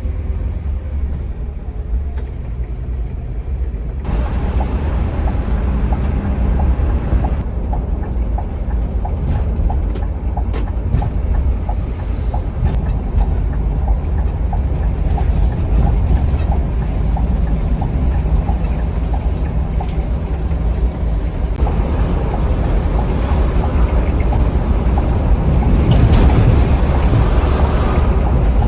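Coach running at highway speed: a steady heavy low rumble of engine and road noise, with a regular light ticking for a stretch in the middle.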